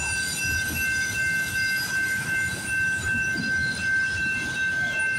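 Freight train's autorack cars rolling past at close range, a steady rumble of wheels on rail. A constant high-pitched tone sounds over it without a break.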